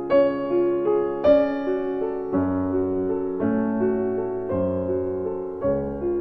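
Background piano music: a slow, gentle melody played over chords, with new notes struck about once a second.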